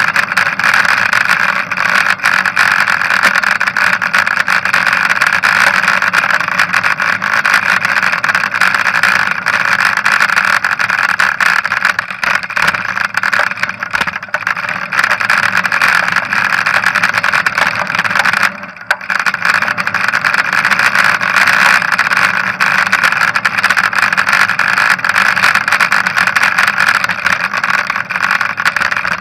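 Steady rushing noise of a bicycle ride picked up by a handlebar-mounted camera: wind and road vibration on the microphone, with city traffic around it. The noise drops out briefly about two-thirds of the way through.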